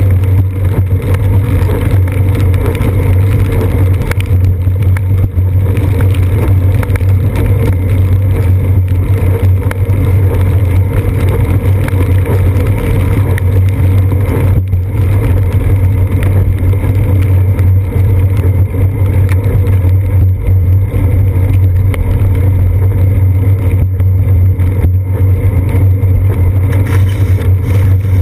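Steady, loud, dull rumble of a bicycle rolling on wet pavement, picked up by a GoPro Hero 2 mounted on the seat post: road vibration and wind noise through the camera.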